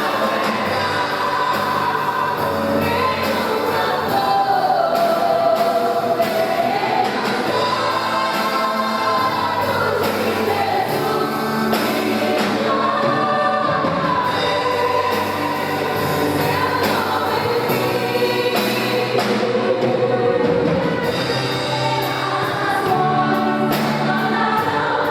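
Gospel worship song performed live, a group of singers in unison over a band with a steady beat.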